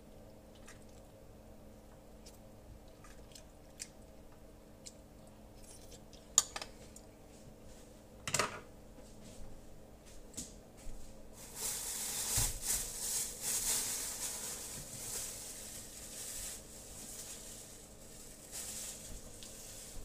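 Kitchen counter handling sounds: scattered light clicks and clinks of utensils and dishes, a sharp clack about a third of the way in and a knock soon after. Then several seconds of rustling, scraping noise, under a faint steady hum.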